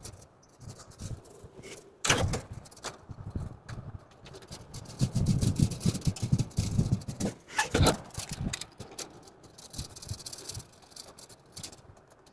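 Steel dish-rack parts being handled and fitted together by hand: scattered metal clicks and clinks, with a sharp knock about two seconds in and another just before eight seconds, and a stretch of busier handling noise between them.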